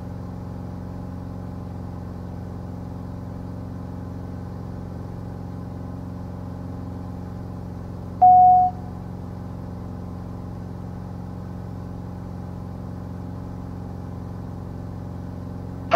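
Steady drone of a Cirrus SR20's four-cylinder Lycoming engine and propeller in the cockpit. A single short beep about halfway through is the loudest sound.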